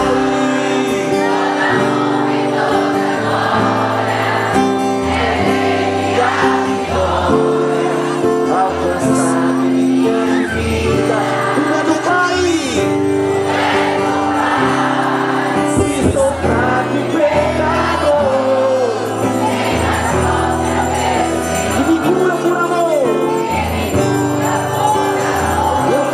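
Christian worship song: singing over long held chords, with a few brief shimmering high accents.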